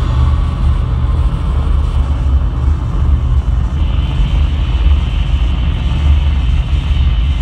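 Loud, steady low rumbling drone of live electronic noise music over a PA, with a thin high tone coming in a little past the middle.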